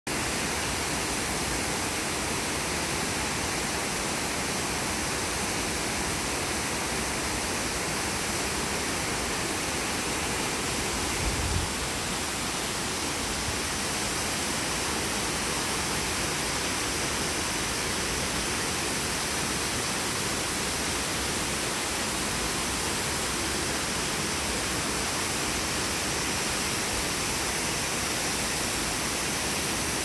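Steady rush of falling water from a waterfall, with one brief low thump about eleven seconds in.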